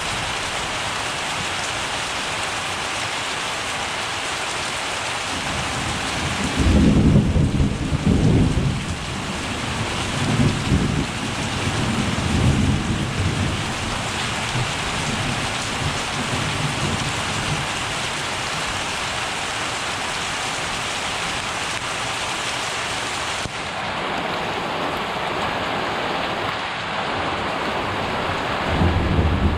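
Steady rain falling through a thunderstorm. A loud rumble of thunder breaks about six or seven seconds in and rolls on in several swells for about ten seconds, and another rumble begins near the end.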